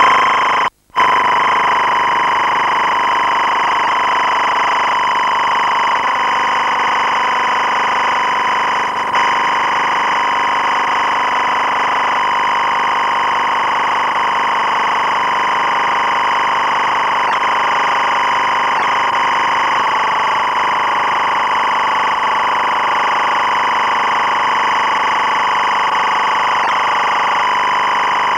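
A steady, unchanging drone made of a strong held tone with several higher tones above it. It drops out for a moment about a second in and then runs on at the same level.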